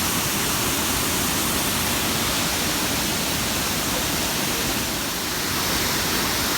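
Waterfall rushing steadily, an even wash of falling water.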